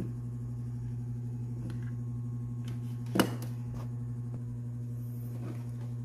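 Steady low electrical hum, with one sharp click about three seconds in and a few fainter clicks from handling the audio converter and its cables.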